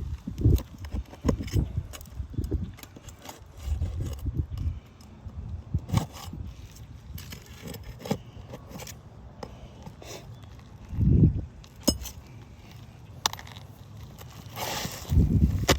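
Scraping, clinking and crackling of hands and tools working asphalt shingles loose, with scattered sharp clicks and a few dull low thumps, the loudest about eleven seconds in and near the end.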